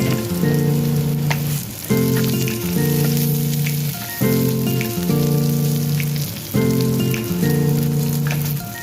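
Background music, a repeating instrumental melody, over the steady sizzle and crackle of food frying in a pan. The music stops near the end, leaving only the sizzling.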